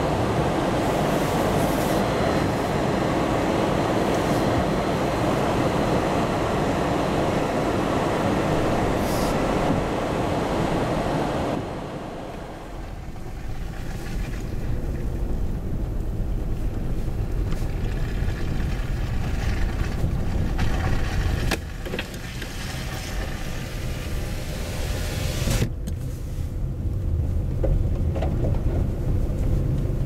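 A vehicle heard from inside its cabin while it moves over a snow-covered road: a steady low rumble of engine and tyres under a loud rushing noise. The rushing noise drops away about twelve seconds in, leaving mostly the rumble, and there is a brief knock a few seconds before the end.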